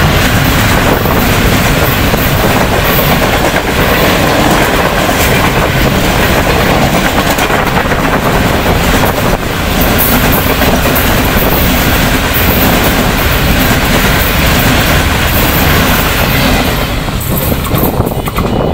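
Pakistan Railways express passenger coaches passing close by at speed: loud, continuous noise of steel wheels running on the rails. The noise eases near the end as the last coach goes by.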